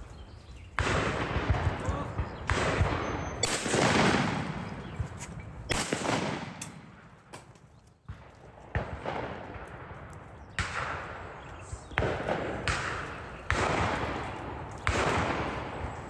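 Shotgun shots, about ten sudden reports at irregular spacing, each dying away in a long echo.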